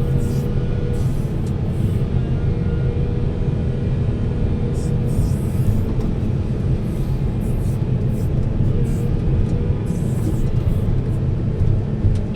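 Heavy diesel machinery running with a steady low rumble.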